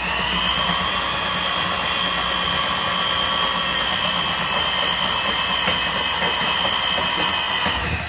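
Ridgid K-45 drum drain snake's motor spinning the cable while the autofeed pushes it down a washing machine drain standpipe toward the trap. The motor spins up with a rising whine, runs steadily, and winds down just before the end.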